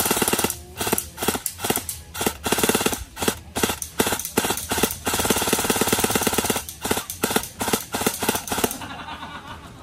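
Tan SCAR-style airsoft rifle firing in rapid full-auto bursts with short pauses between them. The firing stops near the end.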